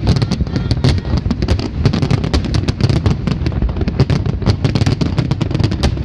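Fireworks display in a dense barrage: many sharp bangs and crackles follow one another too quickly to count, over a continuous low rumble.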